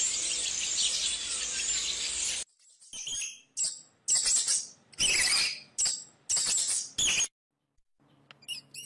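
Small birds chirping: a dense, high-pitched chorus of chirps for about two and a half seconds, then a run of short separate bursts of chirping, each cut off abruptly.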